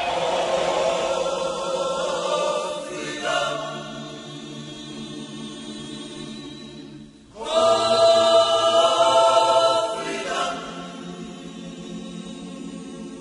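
A choir singing in slow, long-held notes, with a louder phrase swelling in about halfway through.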